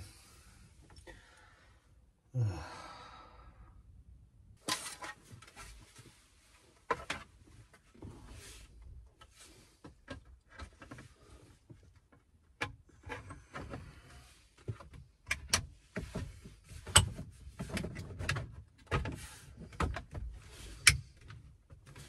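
Irregular clicks, taps and knocks of hard plastic steering-column parts (the switch housing and trim) being handled and fitted back onto a VW Transporter T5's column. A short rustle comes about two and a half seconds in.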